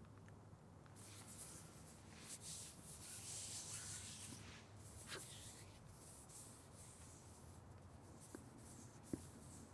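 Hands rubbing together, a soft, uneven swishing of skin on skin that starts about a second in and swells and fades. A small click near the end.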